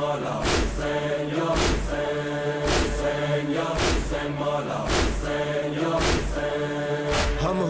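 A noha, the Shia Muharram lament, chanted with long held notes over a loud beat that strikes about once a second.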